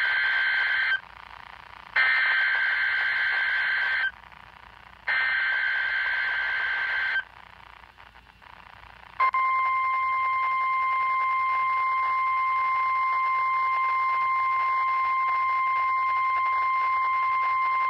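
NOAA Weather Radio Emergency Alert System tones announcing a severe thunderstorm watch. First come the SAME header's digital data bursts, a harsh electronic warble repeated three times, each about two seconds long with a second's gap. After a short pause comes the 1050 Hz warning alarm tone, one steady pitch held for about nine seconds.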